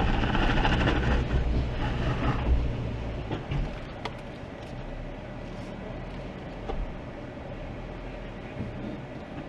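Off-road vehicle engine running under load with a low rumble during a winch-assisted climb, easing off about three seconds in to a quieter, steady hum.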